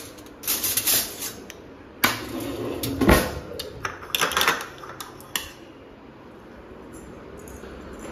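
A quick irregular run of clattering knocks and clicks from hard objects being handled, dying away after about five and a half seconds.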